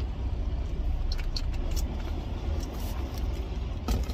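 Semi truck's diesel engine idling steadily, a low rumble heard from inside the cab, with a few light clicks and taps in the middle and a sharper knock near the end.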